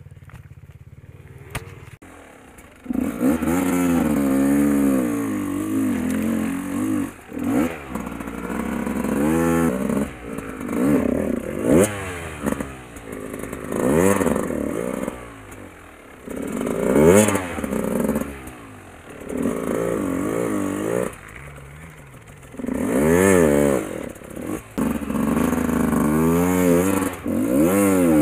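GasGas enduro dirt bike engine, idling at first, then revved hard in repeated throttle bursts whose pitch rises and falls every couple of seconds as the bike works up a rocky trail.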